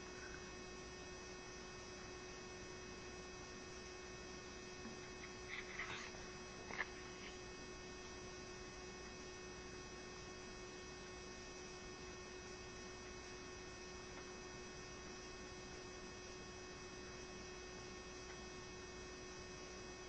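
Steady electrical hum with a faint hiss beneath it. A couple of faint, short sounds come about six and seven seconds in.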